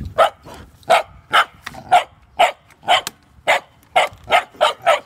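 Dog barking repeatedly, about two sharp barks a second.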